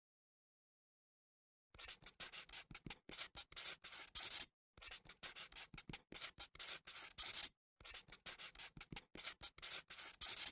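Writing on paper: quick scratchy strokes in fast succession, starting about two seconds in and running in three stretches with short pauses between them.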